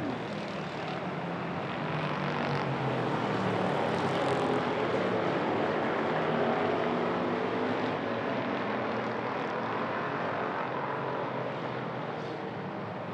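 Hobby stock race cars running at speed on an oval track, several engines overlapping. The sound swells over the first few seconds as the pack comes by, then slowly fades.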